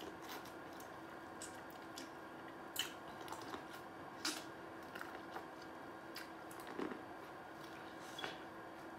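Biting and chewing into an ear of boiled corn on the cob: irregular short clicks and crunches of teeth stripping kernels, close to the microphone, over a faint steady hum.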